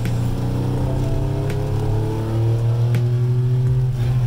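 Background music with a steady low drone, slowly rising tones and a sharp hit about every second and a half.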